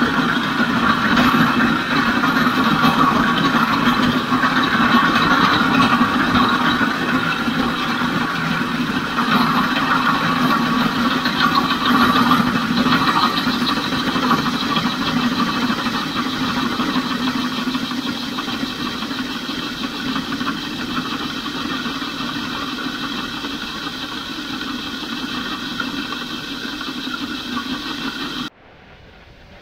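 Grain auger running while soybeans pour from a gravity wagon into its hopper: a steady mechanical rattle and rush that slowly grows quieter, then cuts off suddenly near the end.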